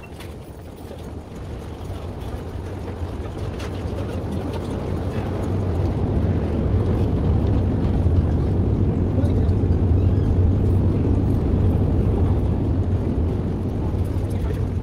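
Low vehicle rumble, like heavy traffic, building steadily to its loudest about two-thirds of the way through and then easing off a little.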